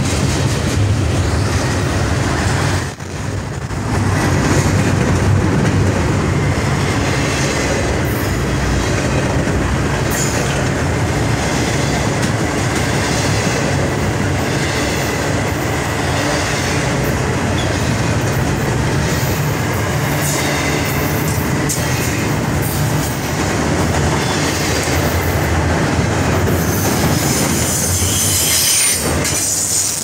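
CSX double-stack intermodal freight train's container cars passing close by at speed, a steady loud rush of wheels on rail, with a brief dip about three seconds in.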